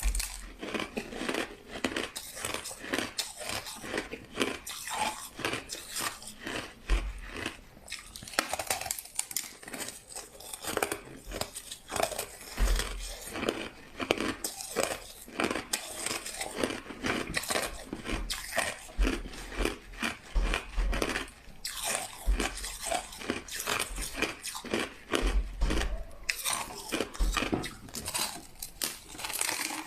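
A person biting and chewing crushed ice close to the microphone: rapid, crisp crunching that goes on in runs, with brief pauses between mouthfuls.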